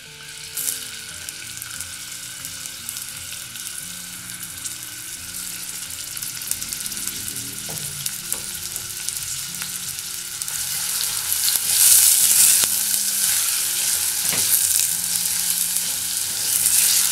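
Finely diced onion sizzling in hot olive oil in a stainless steel saucepan. The sizzle grows louder over the second half, and near the end the onion is stirred with a silicone spatula as it starts to sauté.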